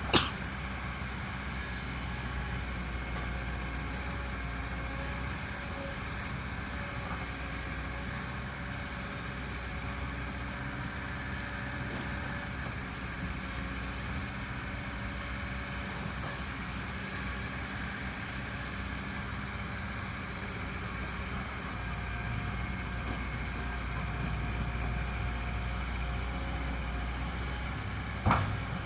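Kobelco excavator's diesel engine running steadily under work, growing a little louder about three-quarters of the way through. A sharp knock comes right at the start and another near the end.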